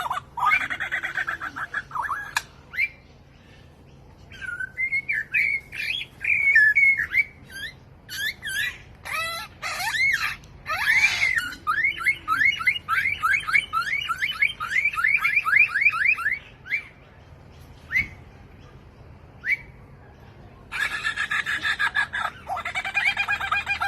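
A songbird singing a long, varied song billed as having a thousand different sounds: chattering at the start, then whistled phrases, then a fast run of about five or six repeated sweeping notes a second lasting several seconds, a few single notes, and dense chattering again near the end.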